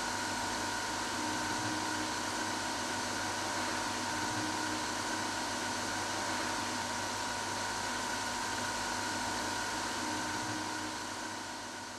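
Steady hum and hiss of running workshop machinery, with a few steady high tones. It starts fading out near the end.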